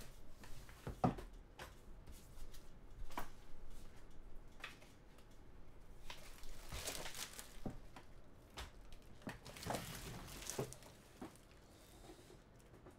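Faint scattered clicks and brief rustles of trading cards and their packaging being handled, with a couple of longer rustling bursts in the middle.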